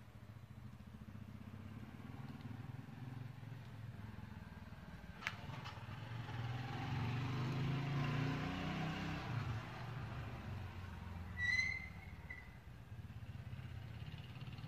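A motor vehicle passing: a low engine hum that grows louder to a peak about eight seconds in and then fades. A sharp click comes about five seconds in, and a short high chirp about eleven seconds in.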